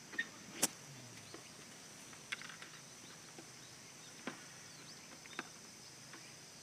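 Steady high-pitched chirring of insects, with five sharp clicks scattered through it, the loudest about half a second in.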